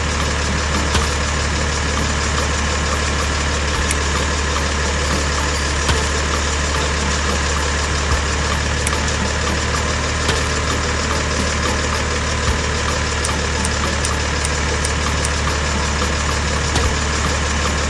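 Steady mechanical hum of a small running motor, unchanging throughout, with a few faint clicks now and then.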